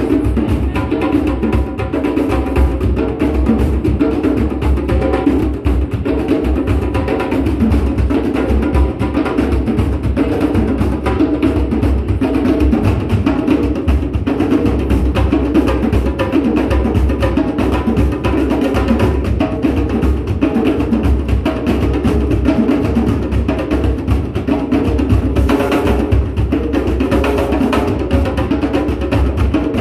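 Five djembe hand drums played together in a dense, unbroken polyrhythm.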